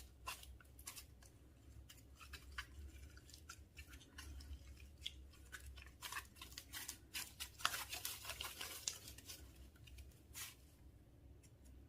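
Slime being mixed, making irregular sticky clicks and crackles that come thickest about six to nine seconds in.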